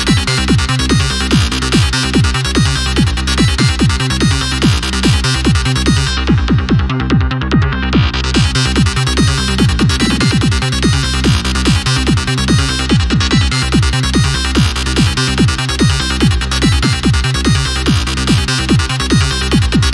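Goa trance loop playing: a steady four-on-the-floor kick under an FM synth lead from Ableton Live's Operator. The highs are cut away for about two seconds around six seconds in, and briefly again near thirteen seconds.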